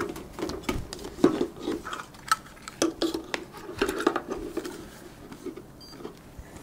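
Welder cables and torch hose being gathered and handled, with a run of light clicks and knocks of plastic and metal for the first few seconds. A short faint electronic beep from a digital hanging scale comes near the end.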